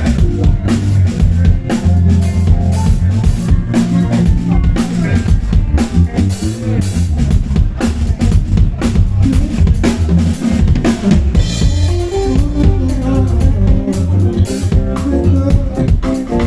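Live band jam: a drum kit plays busy, fast patterns of kick, snare and rimshots over steady electric bass lines and other pitched instruments.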